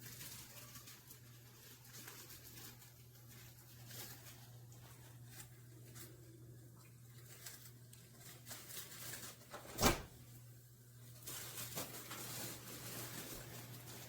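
Faint rustling and handling noises over a steady low hum, with one sharp click just under ten seconds in.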